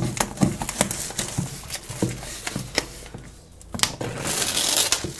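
Plastic shrink-wrap being peeled off a cardboard box, crinkling and crackling in irregular sharp snaps, with a brief lull about three and a half seconds in.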